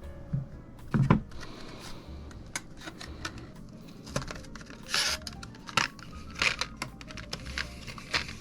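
PC components and their packaging being handled: scattered clicks and knocks with short bursts of rustling, and a heavier thump about a second in.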